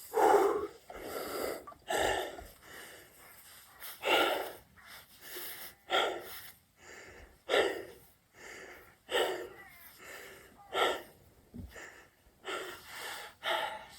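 A man breathing hard during a set of burpees: heavy, rhythmic exhales, one about every one and a half to two seconds.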